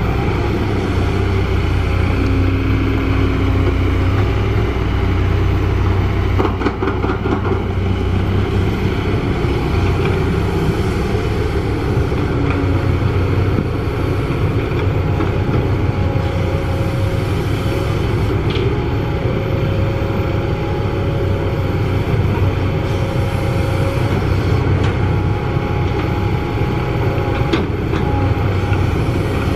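Kobelco SK200 crawler excavator's diesel engine running steadily under load while it digs and heaps soil, a constant low rumble. A few brief knocks come about seven seconds in, and a thin higher whine comes and goes in the second half.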